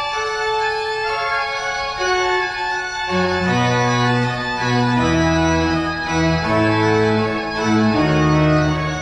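Organ playing sustained chords, with low bass notes coming in about three seconds in.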